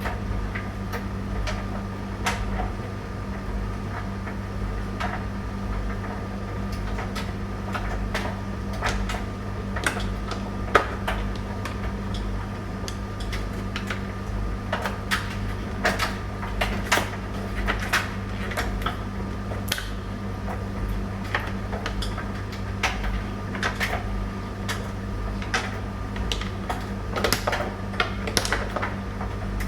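Tumble dryer running with a steady motor and drum hum and a faint thin whine. Irregular light clicks and taps sound over it as the load tumbles in the drum.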